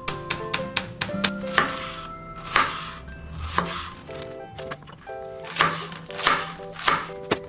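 Chef's knife chopping a green onion on a wooden cutting board: a quick, uneven run of knife strikes against the board.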